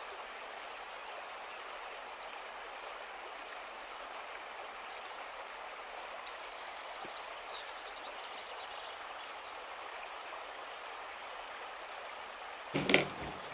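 Outdoor nature ambience: a steady hiss with faint, high bird chirps scattered through it. Shortly before the end there is a brief, louder pitched sound.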